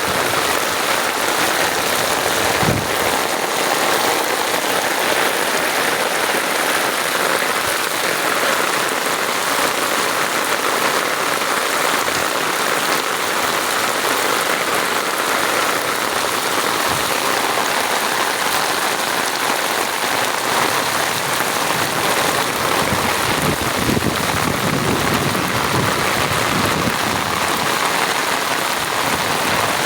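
Steady rain falling and hitting surfaces, an even, unbroken hiss of drops.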